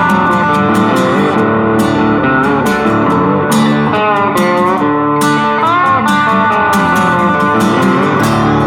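Background music: guitar-led instrumental with plucked and bent electric guitar notes over a steady backing.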